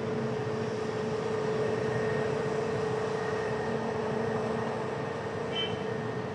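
Airbus A320neo's CFM LEAP-1A turbofan engines running at taxi power: a steady drone with a constant humming tone.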